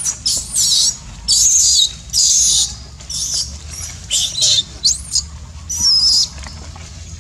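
Baby macaque screaming: a rapid run of shrill, high-pitched squeals, many bending up and down in pitch, easing off near the end. These are the distress cries of an infant frightened and hurt by an adult male.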